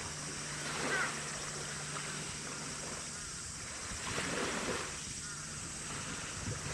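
Harbour water lapping and splashing, with wind on the microphone and a steady low hum, likely from a nearby ship's engine, that stops about five seconds in.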